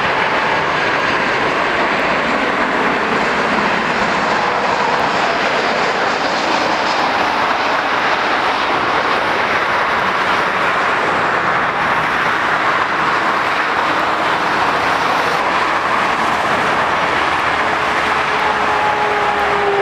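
Jet airliner engine noise: a steady rush with faint whining tones that slide slowly lower in pitch.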